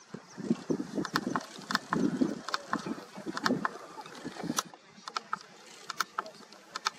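Lions feeding on a buffalo carcass: irregular chewing and tearing with sharp crunching clicks, busier in the first half.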